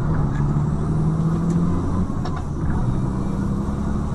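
Motor vehicle engine running steadily with a low road rumble, as picked up by a dashcam.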